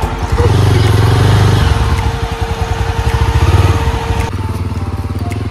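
Motorcycle engine running under way, surging louder about half a second in and again near three and a half seconds, then easing off.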